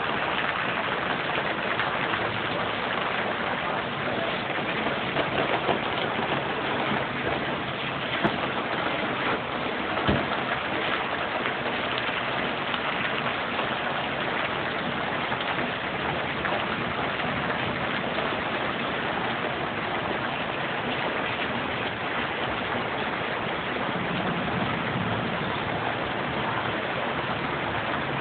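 Steady rain falling on a concrete rooftop terrace, with a couple of brief knocks about a third of the way in.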